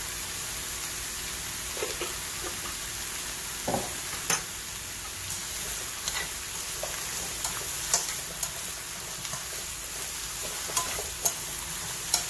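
Sliced loofah sizzling in a frying pan as it is stir-fried and turned with chopsticks: a steady sizzle with scattered sharp clicks of the chopsticks against the pan, the loudest about four seconds in.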